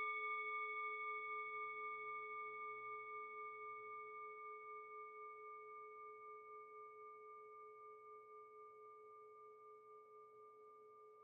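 A singing bowl ringing on after a single strike, its note and higher overtones fading slowly with a regular wavering pulse.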